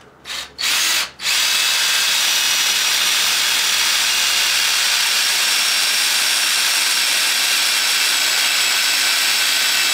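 Cordless drill driving a self-tapping set screw into the steel chain tensioner roller bracket. It gives two short blips, then runs steadily for about eight and a half seconds.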